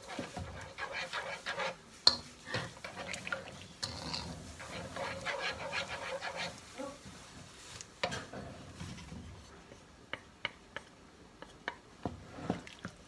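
Wet sloshing and stirring of coconut milk in a wok, first by hand, then with a wooden spatula. In the last few seconds the activity thins to a handful of light clicks and taps against the pan.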